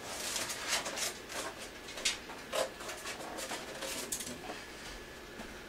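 Styrofoam packaging being worked off a computer case by hand: a run of short rustles, scrapes and creaks that thin out near the end.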